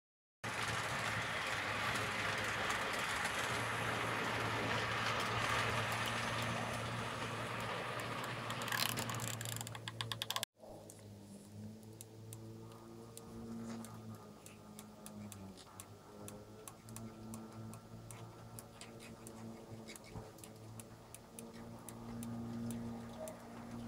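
H0 model trains running on a layout: a steady motor hum with the whir and rattle of wheels on the track, loud at first. After a sudden cut about ten seconds in it is quieter, with a hum and scattered light clicks.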